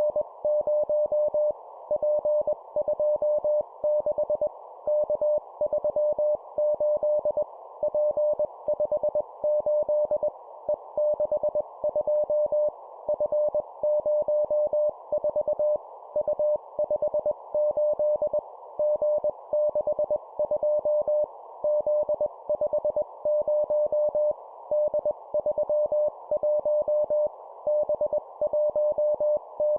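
Morse code keyed at 20 words per minute as a single mid-pitched tone, sent in three-character groups of a letter and two numbers with short pauses between groups, over a steady hiss.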